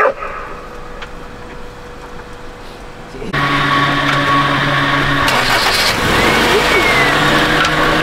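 A short sharp knock, then a little over three seconds in a Honda CR-V's engine starts and keeps running steadily.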